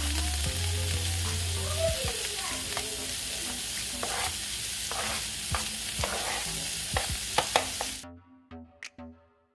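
Onions, bell peppers and garlic sizzling in olive oil in a pan, with a few sharp clicks. The sizzle cuts off suddenly about eight seconds in, leaving faint background music with a beat.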